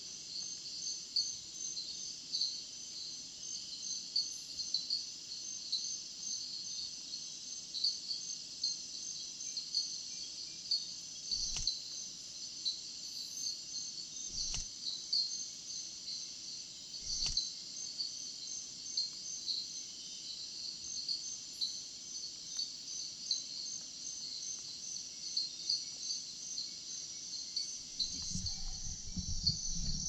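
Steady chorus of rainforest insects at night, a dense high-pitched trilling and rapid chirping. A few faint clicks sound in the middle, and low rustling comes in near the end.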